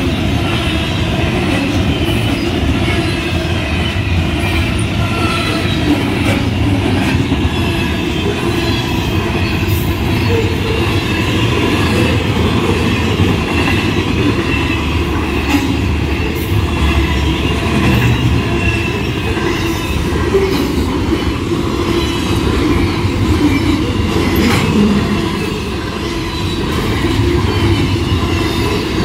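Union Pacific intermodal freight train rolling past at close range: a loud, steady rumble of wheels on rail, with a high wavering squeal from the wheels and irregular clicks over the rail joints.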